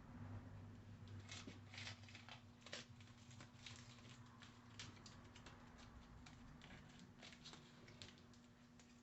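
Near silence: faint, irregular light clicks and taps over a steady low hum, from about a second in until near the end.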